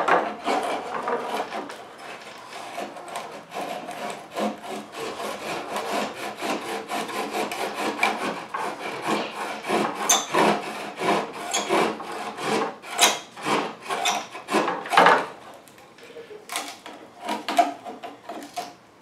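Hand sawing through the tail cone of an RC F-4 Phantom jet model: a long run of quick, irregular back-and-forth strokes, heavier in the second half.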